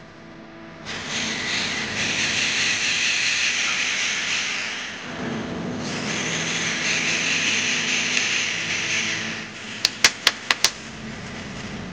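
Corded electric drill with a countersink bit boring pilot holes into a hardwood plank, in two steady bursts of about four seconds each. Five quick sharp clicks come near the end.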